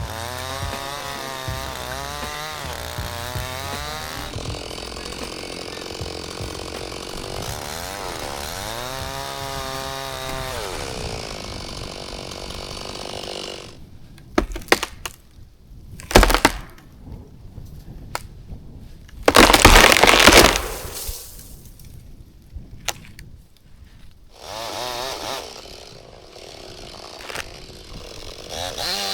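Chainsaw cutting into a tree trunk, its pitch dipping and recovering under load, then stopping about 13 seconds in. Wood then cracks sharply a few times, and about 20 seconds in comes the loudest sound: a long crash of breaking wood as the tree comes down.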